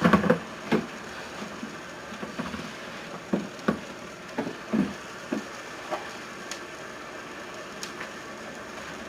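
Irregular knocks, clicks and clatter of hard objects being handled and set down, about a dozen of them and loudest in the first second and around the middle, over a steady faint hiss.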